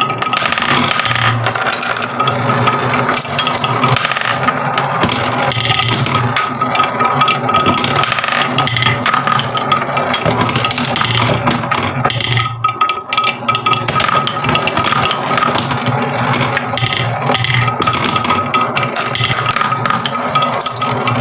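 Many marbles rolling and clattering down wooden marble-run tracks: a dense, continuous rattle of small clicks, with a steady high whine beneath it. Everything briefly drops away about halfway through.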